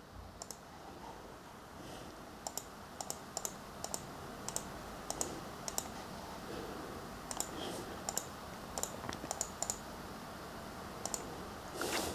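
Computer mouse clicking in scattered, irregular clicks, some in quick pairs, as the points of small line shapes are placed on screen. Faint room noise underneath.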